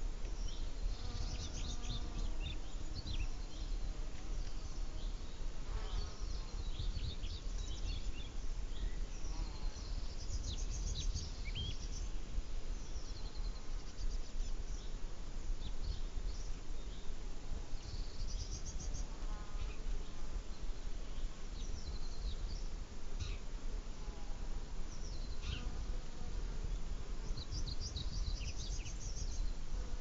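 Flying insects buzzing as they pass close by, swelling and fading several times, over a steady low rumble, with short high chirps scattered through.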